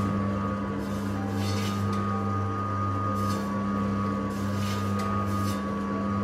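Electric food slicer's motor humming steadily as its round blade spins. Pineapple is being cut into paper-thin slices, with a short swish every second and a half to two seconds as each slice comes off the blade.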